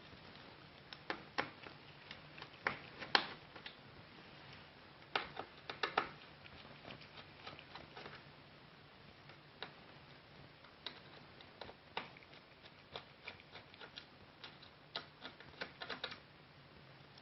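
Laptop disassembly by hand: scattered light clicks and taps of small plastic and metal parts and tools, coming irregularly and sometimes in quick clusters.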